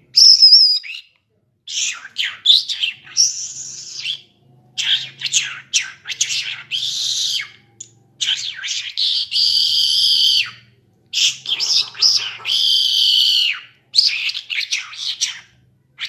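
Caged lark singing its full song as a string of phrases, each a second or two long with short pauses between. Several phrases end in a long held trill.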